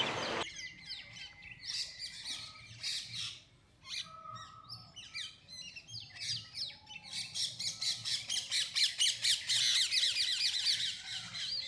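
Birds chirping and calling in short, high calls. From about seven seconds in, the calls turn into a quick, dense run that grows louder.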